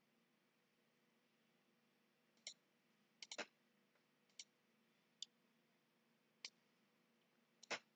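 Computer mouse clicking: a few single clicks and quick double-clicks, starting about two and a half seconds in, over a faint hiss.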